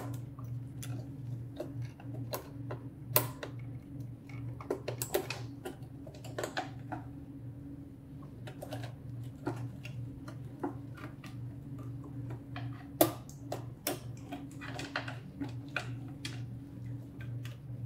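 Irregular small clicks and taps of gloved hands working flex-cable connectors and panel parts inside an opened SLE 5000 infant ventilator, with a sharper click about three seconds in and another near thirteen seconds. A steady low hum runs underneath.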